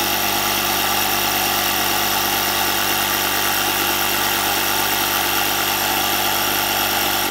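Ryobi 18 V cordless tyre inflator's compressor running steadily as it tops up a car tyre through its high-pressure hose, then cutting off abruptly at the end as it reaches the preset pressure and shuts itself off.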